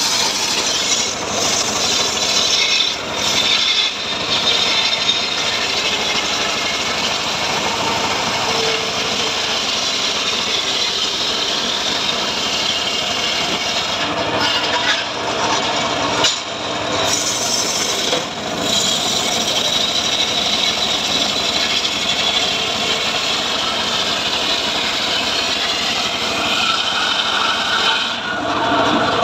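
Homemade circular saw bench ripping lengthwise through a teak log, a steady, continuous cutting noise with a few brief dips where the feed eases.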